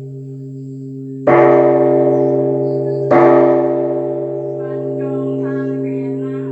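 Buddhist temple bell struck twice, under two seconds apart, each stroke ringing on and fading over a steady low hum. A voice begins to chant softly in the last couple of seconds.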